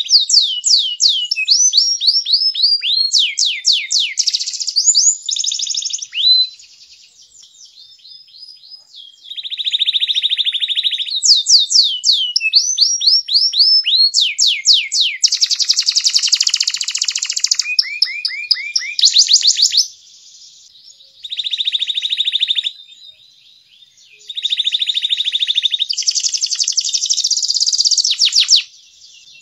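Domestic canary singing a long, loud song of fast repeated trills, runs of quick falling chirps and buzzy rolls, with short breaks between phrases.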